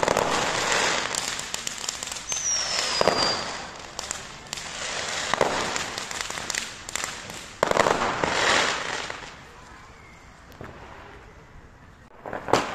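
Fireworks fired from the ground in a rapid barrage: repeated sharp bangs and dense crackling bursts, with a falling whistle about two seconds in. The crackle dies down near ten seconds, and a few more bangs come just before the end.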